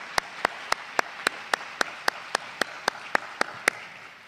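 Audience applauding, with one person clapping close to the microphone in a steady beat of about four claps a second. The close clapping stops near the end and the applause fades away.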